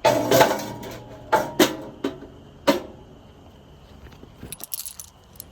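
Small steel toolbox being handled and set against the tractor: a ringing metal clank, then several sharper knocks, and light metallic rattling and clicking near the end.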